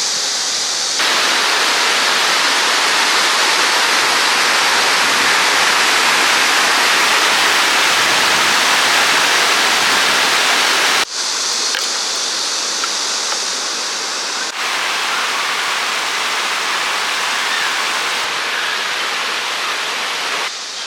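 Valley stream water rushing steadily, a loud even rush over several shots cut together, with abrupt changes in the sound about a second in, about eleven seconds in and again a few seconds later.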